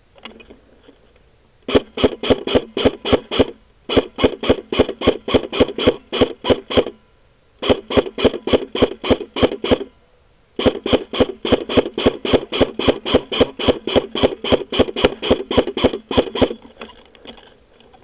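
Airsoft rifle firing in four long strings of rapid, evenly spaced shots, about five to six a second, with short pauses between strings.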